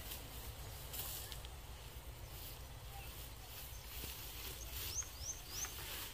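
Gathered rice stalks rustling as they are tipped from a plastic bucket and pressed down into a woven sack, over a steady low rumble. A bird gives three quick rising chirps about five seconds in.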